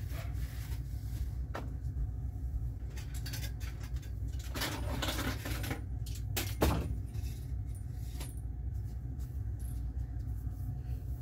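Backdrop stand and backdrops being handled: scattered knocks and clatter, a rustling, scraping stretch around the middle and a sharper knock about two-thirds through, over a steady low hum.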